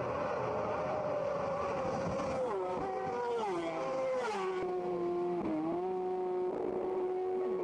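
Road-racing motorcycle engine running hard at high revs, its pitch stepping down several times before levelling off.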